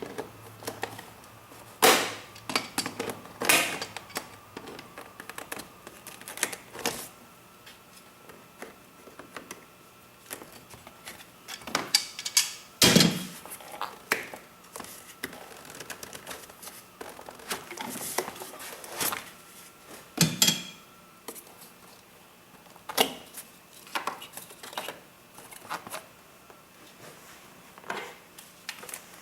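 Irregular clicks and metallic clinks of hand tools and loose parts while parts are taken off in an engine bay, with several louder knocks scattered through.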